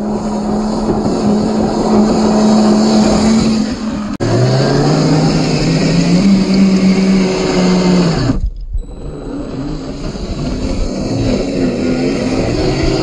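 1/10-scale RC crawler's 540-size 27-turn electric motor and drivetrain whining under load, with tyres churning dirt. The whine holds a steady pitch, breaks off about four seconds in, then returns lower and climbs in pitch as the car speeds up, dropping out briefly past eight seconds.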